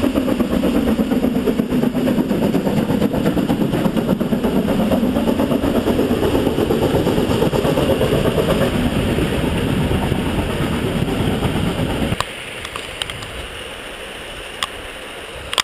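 Narrow-gauge steam train of the Harz railway passing close by, locomotive then coaches, a loud dense rumble for about twelve seconds that cuts off abruptly, leaving a quieter background with a few sharp clicks near the end.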